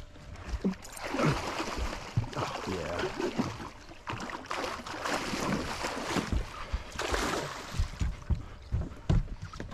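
Hooked musky thrashing at the surface beside the boat, splashing water in repeated bursts, with many short low thumps mixed in.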